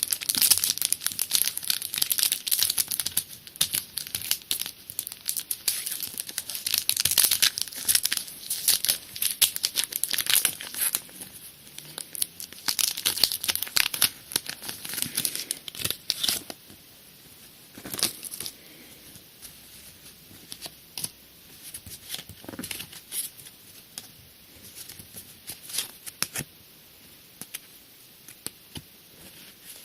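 Pokémon booster pack's foil wrapper crinkling and tearing open, dense for the first half, then thinning to occasional rustles and clicks.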